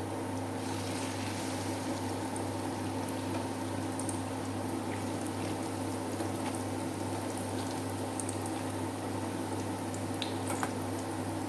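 Battered banana blossom deep-frying in hot oil: a steady sizzle with scattered small pops and crackles, over a constant low hum.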